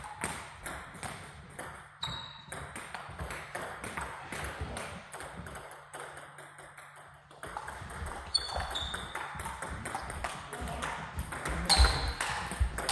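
Table tennis rallies: the ball clicking in quick succession off bats and table tops at two tables, with a short lull about halfway and louder hits near the end.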